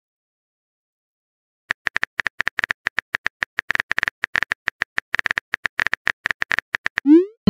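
Simulated phone-keyboard typing clicks, rapid and irregular, one click per letter as a text message is typed out. They start about two seconds in. Near the end a short rising swoosh begins, the start of the message-sent sound effect.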